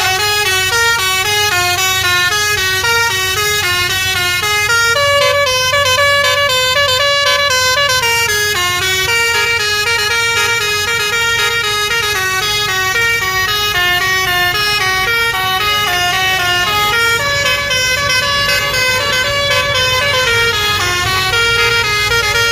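Basuri telolet multi-tone musical horn playing a fast melody of short notes, stepping up and down in pitch about three to four notes a second.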